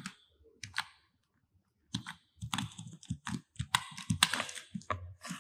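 Typing on a computer keyboard: a few key clicks, a pause of about a second, then a quick run of keystrokes.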